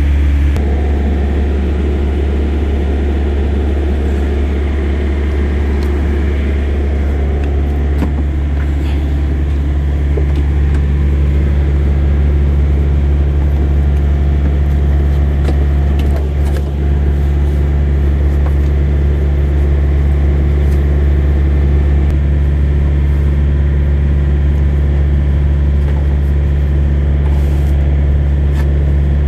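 Steady low drone of an idling diesel engine, with a few faint clicks and rubs from a rubber serpentine belt being handled and fed over pulleys.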